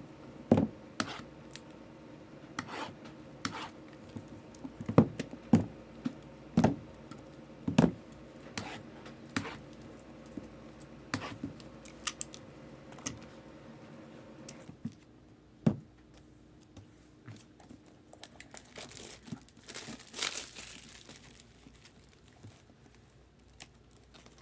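Trading card boxes being handled and unwrapped: sharp taps and knocks for the first fifteen seconds or so, then crinkling and tearing of plastic wrapping about twenty seconds in.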